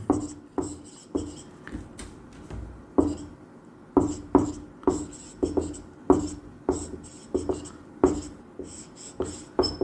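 Marker pen on a whiteboard: a quick run of short strokes and taps, about two a second, as letters and bond lines are written.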